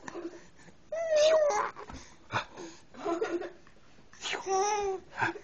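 A baby babbling and making pitched vocal noises in several short bouts, the longest about a second in and near the end.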